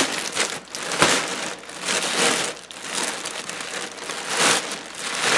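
Black plastic garbage bags rustling and crinkling as hands pull them open and dig through them, with a couple of sharp crackles of the plastic.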